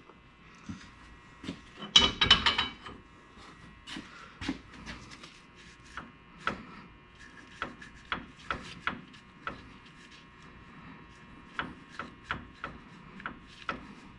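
Irregular light metallic clicks and knocks, with a quick flurry about two seconds in, from a Mopar 8.25 differential's ring gear being rocked against the pinion to read backlash on a dial indicator. The backlash reads about 9 thousandths.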